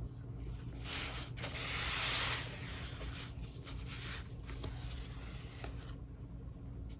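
Soft fabric rubbing and rustling as the headset's carrying pouch is handled, loudest for a second or so about two seconds in, then fainter rustles and a few light ticks.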